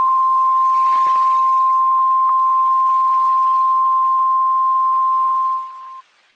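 NOAA Weather Radio 1050 Hz warning alarm tone: one steady, loud single-pitched tone over a faint radio hiss. It fades about five and a half seconds in and cuts off just after. The tone signals that a weather warning message follows.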